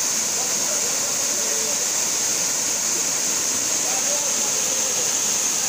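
Waterfall pouring steadily onto rock, a constant rush of water, with faint voices in the background.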